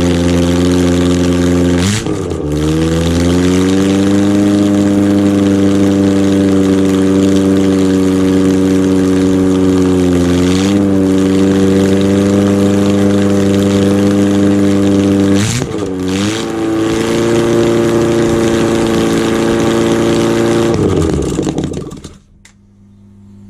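Freshly rebuilt Ford Pinto 2.0 SOHC inline-four (202 block) running at a steady idle on a chokeless Weber 32/36 DGAV test carburettor. Its speed wavers briefly twice, and it is shut off and stops near the end.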